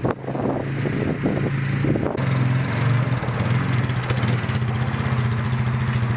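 Utility ATV engine running at low speed, a steady low drone, with an even pulsing beat in the last couple of seconds.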